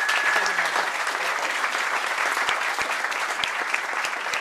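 A roomful of people applauding, a dense even clapping that tails off slightly toward the end.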